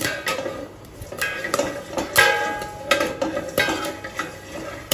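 Popcorn kernels popping inside a covered stainless-steel kadhai: irregular sharp pops, about two a second, with metallic clinks and ringing off the steel plate lid as the pan is stirred. The loudest ringing clang comes about two seconds in.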